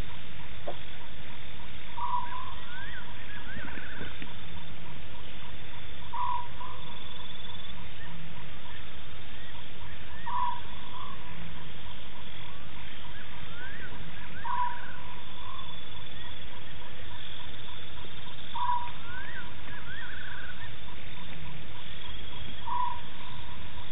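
A wild animal calling at night: a short call repeated regularly about every four seconds, each followed by a few higher rising chirps, over a steady background hiss.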